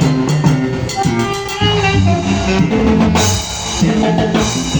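Live band playing a dance tune during a sound check: drum kit to the fore, with low bass notes and other instruments underneath.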